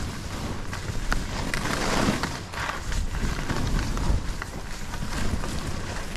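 Skis sliding and scraping through powder snow in rising and falling swells of hiss, with wind buffeting the microphone in a steady low rumble.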